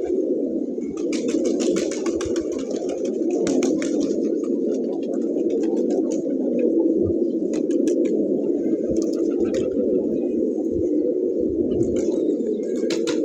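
Domestic pigeons cooing, many at once, in a steady overlapping drone, with scattered light clicks and rustles.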